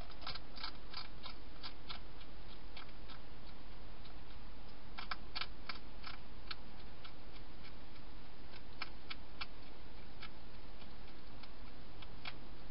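European hedgehog eating inside a plastic feeding-station box, its chewing heard as runs of sharp clicky crunches over a steady hiss: a burst at the start, more around the middle, a few later and one near the end.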